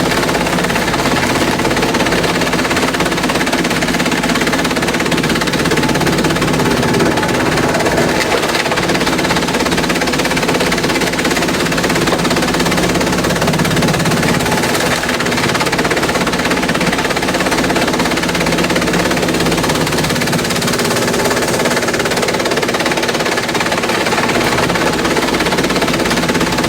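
Industrial bamboo shredder running steadily while it breaks up bamboo: a continuous dense noise over a steady machine hum, with no let-up.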